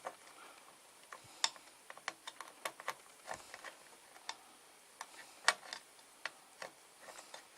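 Irregular small plastic clicks and taps as wiring and connectors are pushed back into a refrigerator's control housing, with one louder click about five and a half seconds in.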